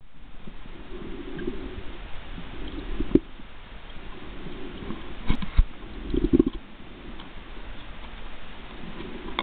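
Muffled underwater sound from a camera in a waterproof housing: water churning and bubbling around it, with sharp knocks about three seconds in and several more between five and six and a half seconds in.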